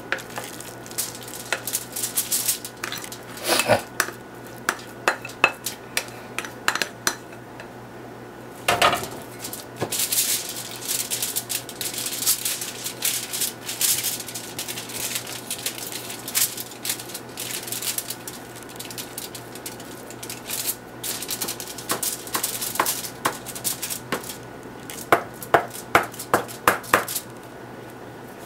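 Food-prep handling sounds: a spoon scraping and clinking against a glass mixing bowl, with ground chicken mixture pressed and patted out onto crinkling aluminium foil. Near the end there is a quick run of about six sharp taps.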